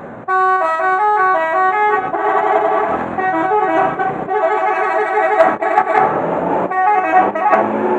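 A bus's multi-tone 'telolet' musical air horn playing a quick melody of stepped notes over the vehicle's running noise. It starts suddenly just after the start and pauses briefly a few times.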